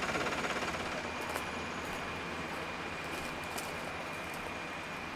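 Mineral exploration drill rig boring into hard rock, running as a steady mechanical drone with a constant high whine. A fast rhythmic pulsing in the first second settles into an even sound.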